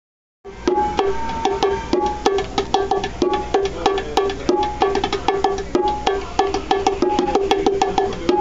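A pair of children's bongos played by hand in a quick rhythm, with strikes moving between the low drum and the high drum, each ringing at its own clear pitch. The playing starts about half a second in. This is test pair "One", heard for how well its two drums are tuned to each other.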